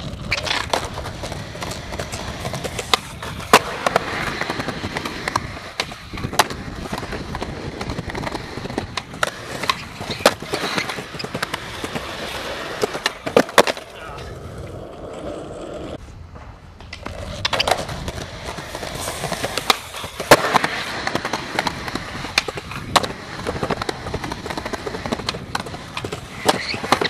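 Skateboard wheels rolling over asphalt and concrete, broken by sharp pops, landings and board clacks from repeated trick attempts. About halfway through, a bailed trick sends the board tumbling off on its own, and the rolling noise drops away for a couple of seconds. Near the end comes a grind along a concrete ledge.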